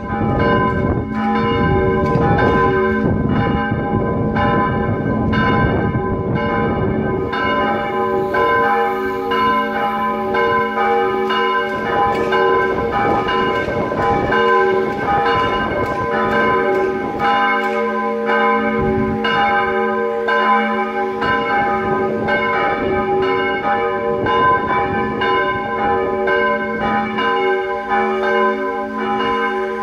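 Church bells, listed as steel bells, ringing together in a steady run of overlapping strokes, about two a second, with their tones ringing on between strikes. A low rumble lies under the first seven seconds or so.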